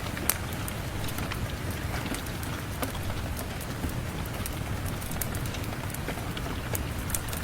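Steady rain, with scattered sharp crackles and pops from a wood fire in a fireplace.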